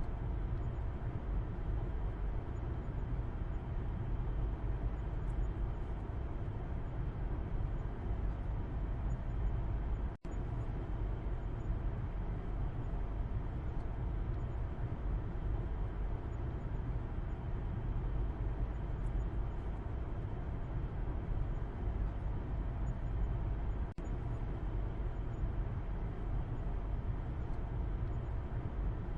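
Steady road and engine noise heard from the back seat of a moving car: a low, even rumble of tyres and engine with a smooth hiss above it. The sound drops out very briefly twice, about ten seconds in and again near twenty-four seconds.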